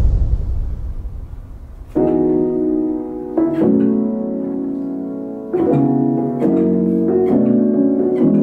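A noisy crash tail dies away over the first two seconds, then an upright piano plays slow, soft chords that change about once a second.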